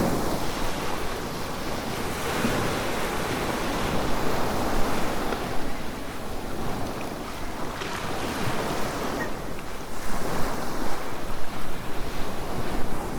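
Waves washing onto a beach, with wind blowing across the microphone.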